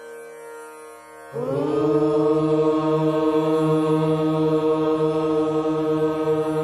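Soft instrumental music, then about a second in a group of voices starts chanting a mantra together, holding one long steady note over the music.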